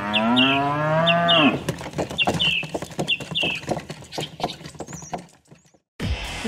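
A cow mooing: one long low moo of about a second and a half. A run of quick clicking hoofbeats follows, with short high chirps in pairs about once a second. Near the end a new hissing sound comes in.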